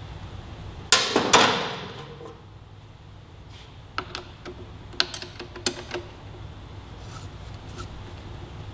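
Hand tools on metal: two loud clanks about a second in that ring briefly, then a run of light clicks and taps as wrenches work the rear mounting bolt of a motorcycle slip-on exhaust.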